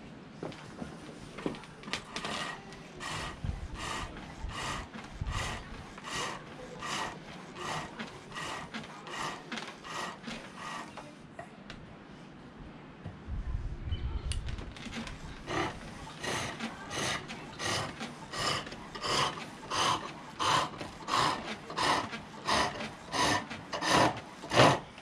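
Turning tool cutting silver birch on a foot-powered pole lathe: a rhythmic scraping cut about twice a second, one cut with each treadle down-stroke as the work spins toward the tool. The cutting stops for a couple of seconds midway, then resumes louder.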